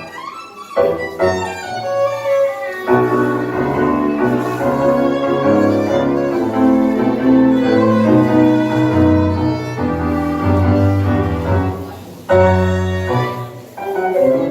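Live tango music from a small ensemble: bowed strings over piano and bass, playing sustained melodic phrases, with a short break between phrases about 12 seconds in.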